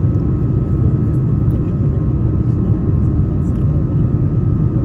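Airliner's engine and airflow noise heard inside the cabin during takeoff: a steady low rumble with a thin steady whine above it.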